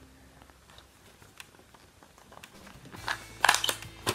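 A small cardboard box being opened by hand: quiet handling at first, then a run of crinkling, crackling paper-packaging sounds from about three seconds in.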